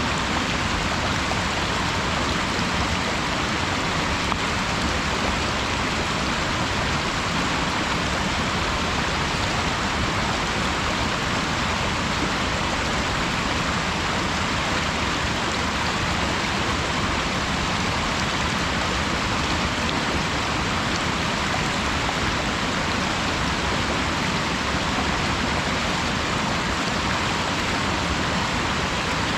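Waterfall pouring steadily: a constant, even rush of falling water that does not change in level.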